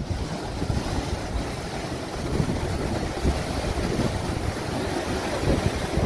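Sea surf breaking and washing in foam over basalt column rocks, a steady rush of water, with wind buffeting the microphone.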